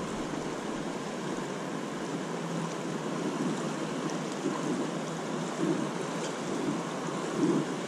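A creek running fast and choppy over rocks, swollen by a sudden flood rise: a steady rush of water. Wind gusts hit the microphone now and then, more often near the end.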